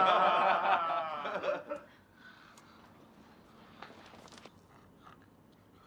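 Several people laughing heartily for the first couple of seconds, the laughter breaking off sharply. Then faint rustling and a few soft knocks as people move about.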